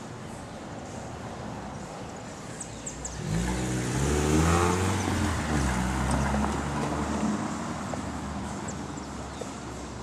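A car drives past, its engine pitch rising as it accelerates. It is loudest about halfway through and then fades away.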